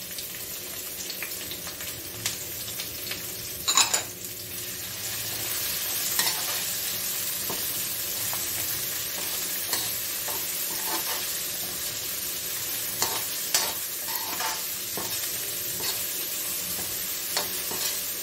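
Chopped onions with garlic and green chillies sizzling in hot oil in a metal kadhai, stirred with a perforated metal spatula that scrapes and clinks against the pan now and then, with a louder clank about four seconds in.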